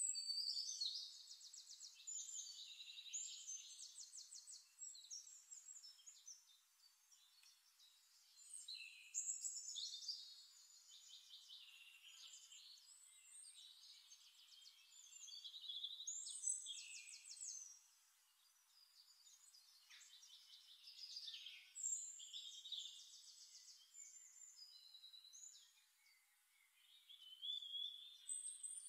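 A songbird singing about five phrases of rapid, high trills and chirps, with short pauses between them.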